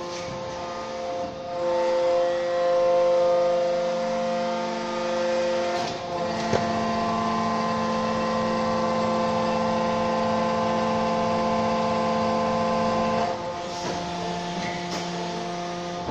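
Negri Bossi V480 injection molding machine's hydraulic pump and motor running through a cycle: a steady whining hum of several tones that rises about a second and a half in, changes pitch and load a few times, and drops back near the end as the machine moves between stages of the moulding cycle.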